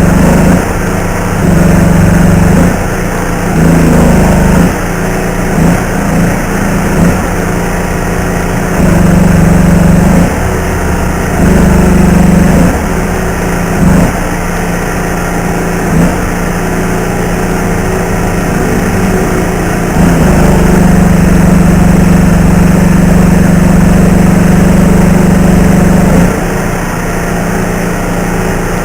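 Stick (arc) welding with electrodes: the welding machine's hum swells each time the arc is struck and held, in short runs of about a second at first, then one longer run of about six seconds near the end, over a steady crackling haze.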